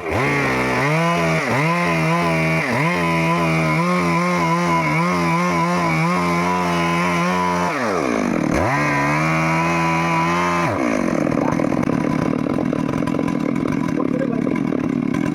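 Stihl MS 382 two-stroke chainsaw running at high revs, the engine pitch dipping briefly a few times in the first seconds and dropping deeply then climbing back about eight seconds in. From about eleven seconds the sound turns rougher and noisier, with no clear engine pitch.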